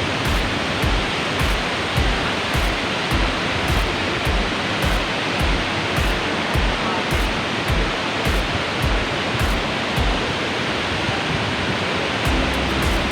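Waterfall rushing steadily, under music with a steady beat about twice a second.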